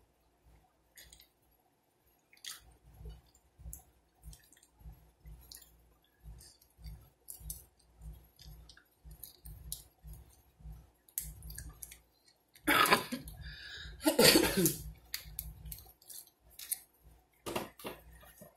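Close-miked chewing and lip smacking: soft chews at about two to three a second, with wet mouth clicks. Two louder, longer sounds come about two thirds of the way through.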